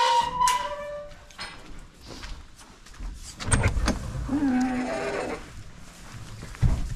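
A steady metallic squeak in the first second, then knocks and a heavy thud, and a goat bleating once for about a second, four seconds in.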